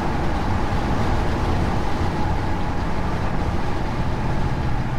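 Steady engine drone and road noise inside the cab of a 1977 Chevy C10 pickup cruising at about 70 mph, the engine turning a relaxed 1800 to 2100 rpm through its 700R4 overdrive transmission.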